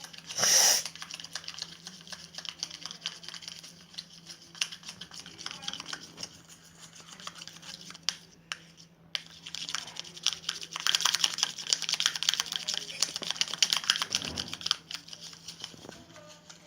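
Slime-making handling sounds: a soap-and-salt mixture being worked by hand, making dense small clicks and crackles that are busiest about two-thirds of the way through, with a short hiss about half a second in.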